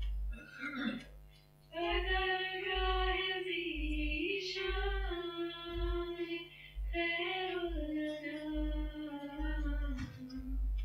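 Female voice singing an Urdu nazm, a devotional poem, unaccompanied. The melody starts about two seconds in, with long held notes.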